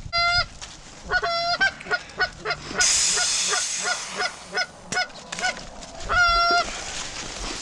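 Geese honking: a quick run of short clucks and honks, with a longer honk about six seconds in. A brief hissing comes about three seconds in.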